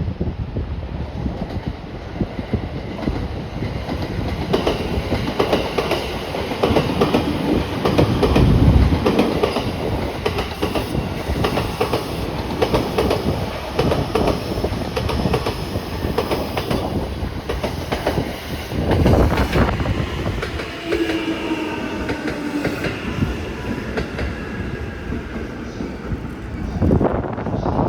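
Electric train running past a station platform, its wheels clattering rapidly over rail joints, with louder swells about eight and nineteen seconds in. A faint whine comes in late on.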